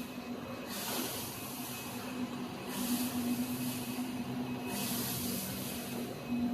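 Factory production machine running: a steady low hum with bursts of hissing that repeat in a regular cycle, about one every two seconds.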